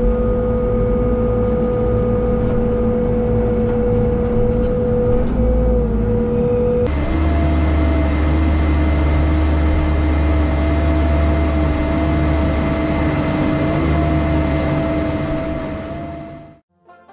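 E55 compact excavator running under work, heard from inside the cab: a steady engine rumble with a high whine on top. About seven seconds in the whine jumps to a higher pitch, and the sound fades out near the end.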